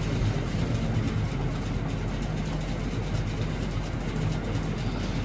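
Steady low rumble of background room noise, even and unbroken, with no distinct events.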